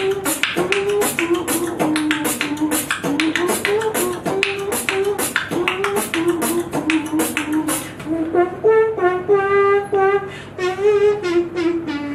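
Human beatboxing close on a microphone: rapid hi-hat and snare-like mouth clicks over a hummed melody line. From about two-thirds of the way in the clicks thin out and a buzzing, wavering vocal tone carries the tune.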